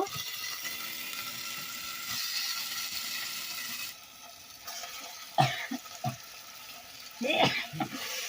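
Chicken pieces sizzling as they go into a pan of masala fried in mustard oil, a steady hiss that breaks off about four seconds in. Then a few short knocks and rasps.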